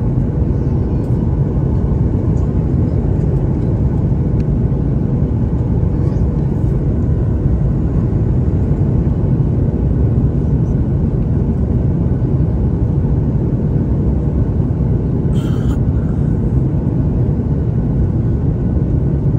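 Steady cabin rumble of a Boeing 737 MAX 8 on final approach, heard from a window seat over the wing: airflow and its CFM LEAP-1B engines. A brief clatter sounds about fifteen seconds in.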